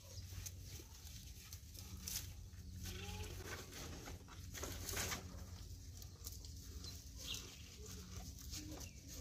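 Ankole cow munching fresh-cut grass from a basin: irregular crunching and rustling of the leaves as it tears and chews, loudest about two and five seconds in. Faint short bird calls sound in the background.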